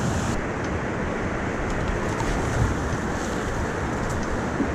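Steady rush of a whitewater river, with wind noise on the microphone.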